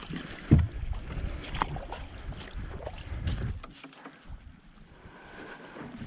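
Dry grass rustling and scraping against a landed sea kayak and its paddle, with a sharp knock about half a second in. Wind buffets the microphone for the first few seconds, then the sound goes quieter.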